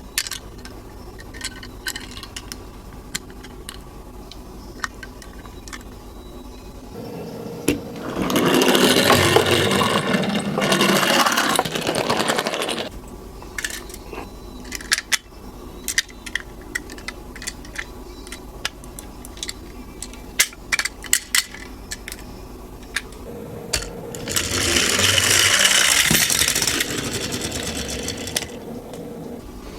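Toy minicars rolling down a slope track, in two runs of about five seconds each, with light clicks and taps from the toys between the runs.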